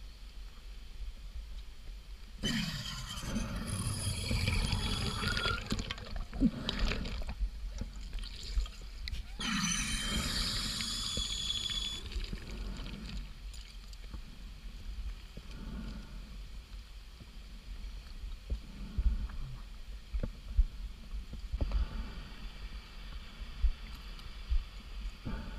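A scuba diver breathing underwater, heard through the camera housing: two long bursts of bubbling and gurgling hiss, one starting about two seconds in and another around ten seconds in, with a faint whistling tone in them. Low knocks and bumps sound on the housing in between.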